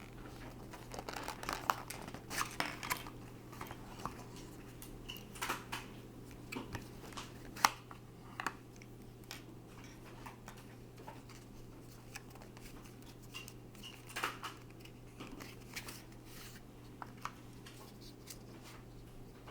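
Packaging and small plastic parts being handled: irregular clicks, taps and crinkling rustles, busiest in the first half and again briefly past the middle, over a steady low hum.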